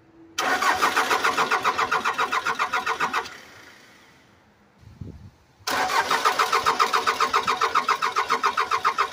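Starter cranking the Case 580C backhoe's 207D four-cylinder diesel in two bursts of about three seconds each, with a fast, even pulse of the compression strokes. The engine does not catch: the injector lines are cracked open to bleed air from the fuel system.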